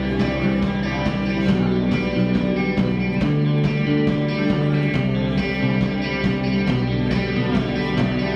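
Live instrumental rock band playing: guitars over a steady drum beat.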